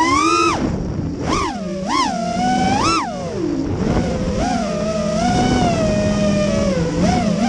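FPV quadcopter's brushless motors and propellers whining, the pitch swooping up and down sharply several times with throttle changes, then holding steadier from about four seconds in before climbing again near the end.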